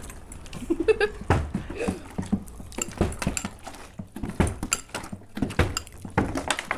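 A partly filled plastic water bottle being flipped and knocking down onto a wooden table, amid a fork clinking and scraping in a glass bowl of noodles. Sharp knocks and clinks come at irregular intervals.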